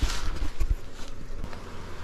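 Handling noise: a short rustle right at the start, then a couple of dull low thumps about two-thirds of a second in, over a low rumble.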